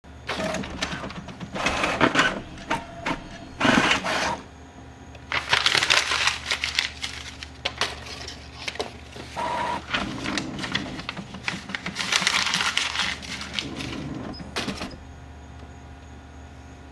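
A small printer working: rapid clicks and clattering with several longer whirring runs as the paper feeds, and a short beep about halfway through. It stops about fifteen seconds in, leaving a faint hum.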